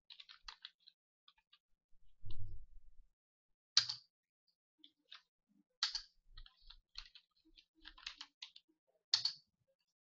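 Computer keyboard typing in short, irregular runs of keystrokes, with a few sharper, louder strokes about four, six and nine seconds in. A dull low thump comes a little after two seconds.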